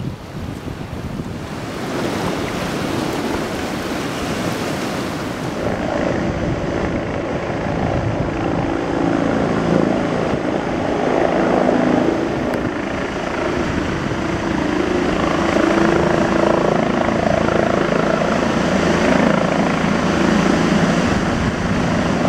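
Helicopter rotor and engine close by, growing louder over the first ten seconds or so and then holding steady, over the rush of river rapids.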